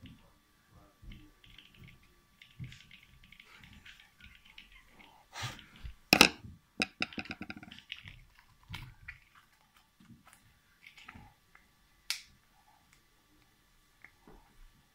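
Recessed spotlight fitting and its plastic driver box being handled during wiring: a string of small clicks and rustles, with a loud cluster of clicks about six seconds in and a single sharp click about twelve seconds in.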